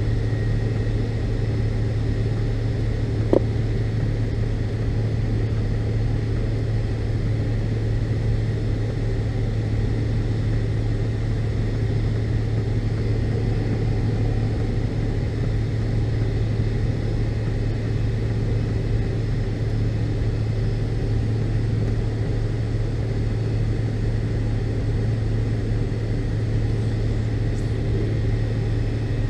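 Steady low drone inside the cabin of a McDonnell Douglas MD-82 airliner, with a faint steady whine above it and one brief click about three seconds in.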